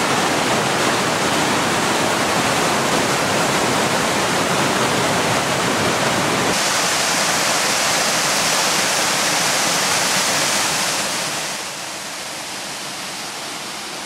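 Siklawa waterfall, a mountain waterfall nearly 70 metres high, giving a loud, steady rush of falling water. About six seconds in the rush abruptly turns thinner and hissier. Near the end it drops noticeably quieter.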